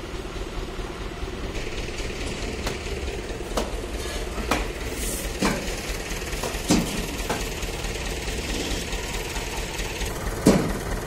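Farm tractor's diesel engine idling with a steady low knock, and a few sharp metallic clinks over it, the loudest near the end.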